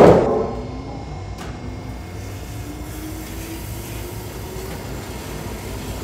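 A sudden loud thump at the very start, then large sawmill band saw machinery running with a steady low rumble, with a faint tone slowly rising in pitch through the middle.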